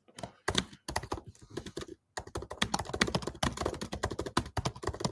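Typing on a computer keyboard: scattered keystrokes at first, a brief pause about two seconds in, then fast, continuous typing.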